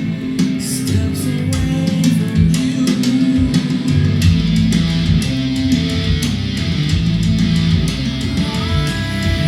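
A guitar-led rock song with bass and drums playing from a vinyl record over a hi-fi system, here an instrumental stretch without singing. The bass fills out about four seconds in.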